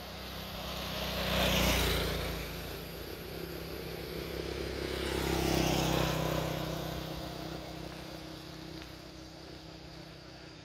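Two motor vehicles passing on the road one after another, each engine sound swelling up and fading away. The first is loudest a little under two seconds in, the second about four seconds later.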